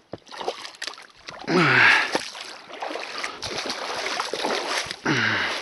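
Spinning reel being cranked to retrieve a spoon lure, a steady whir, with a short voiced grunt about one and a half seconds in.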